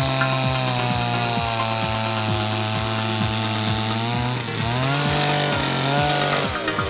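Bluebird TR-Wave motor drill's 56.5cc two-stroke engine running at high speed, its pitch rising about halfway through and dropping back near the end.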